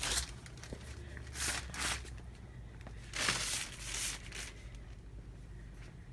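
A long-handled floor sweeper pushed across a hard floor: about four brief brushing swishes, with a steady low hum underneath.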